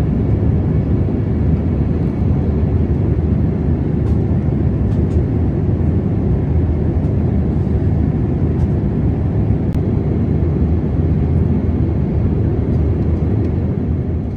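Boeing 787-8 cabin noise in flight: a steady, even drone of engine and airflow, mostly low in pitch, heard from a window seat beside the wing.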